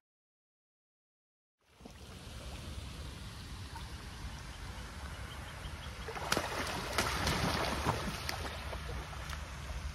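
Silence for about a second and a half, then water lapping with wind on the microphone. About six seconds in, a louder burst of splashing and wing-flapping from waterfowl bathing in the pond, then back to the steady water noise.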